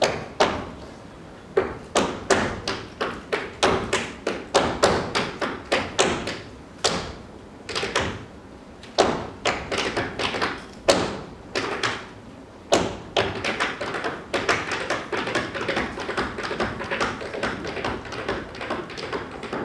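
A cappella tap dance: a dancer's shoes striking the stage floor in quick rhythmic runs of taps and heavier stomps, broken by short pauses.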